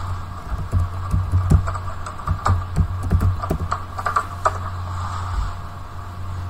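Computer keyboard keys clicking in an uneven run as a short command is typed and entered, stopping about four and a half seconds in, over a steady low hum.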